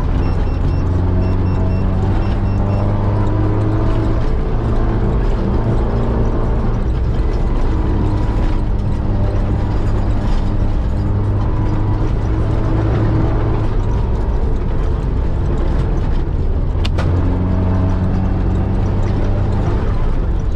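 Off-road competition Mitsubishi Pajero driven hard over rough ground: the engine runs steadily under load, its revs shifting up and down a little, over drivetrain and tyre noise. A single sharp knock comes about 17 seconds in.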